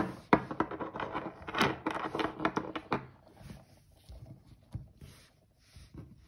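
Metal airsoft gearbox gears handled and set down on a wooden tabletop: a quick run of clicks, taps and scrapes for about three seconds, then a few faint taps.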